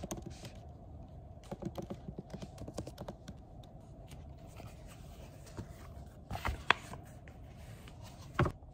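Light taps and scratches of an Apple Pencil and fingertips on an iPad's glass screen, a run of small clicks, then two louder knocks later on.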